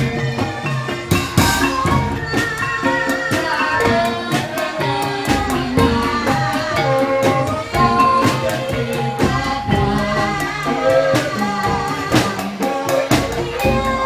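Live Javanese incling folk-dance music: drums and tuned percussion play a busy, steady rhythm, with a voice singing over it.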